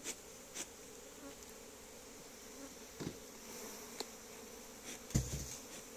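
Honeybees from an open, disturbed frame hive buzzing steadily as comb frames are brushed off for honey harvest. A few light knocks, and one dull thump about five seconds in.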